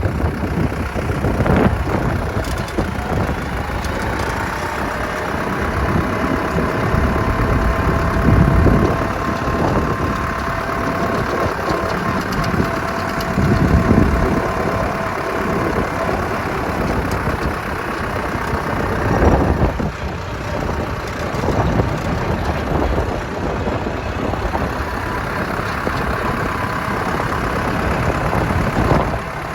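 Strong sandstorm wind blowing and gusting, buffeting the microphone with a low rumble that swells and eases several times. A thin whistling tone runs under it through the first half.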